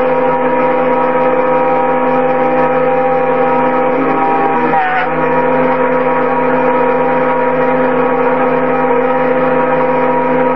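Spindle of a home-built CNC milling machine driving a carbide end mill through aluminium: a steady whine with several tones stacked together, dipping briefly in pitch a little under five seconds in.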